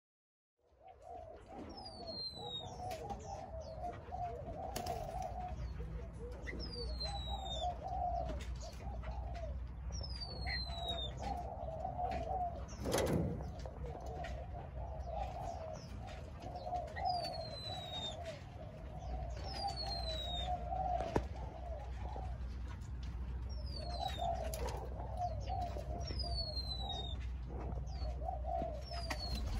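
Spotted doves cooing in a continuous run of phrases, starting just under a second in, while another bird gives a high whistle that slides downward every few seconds.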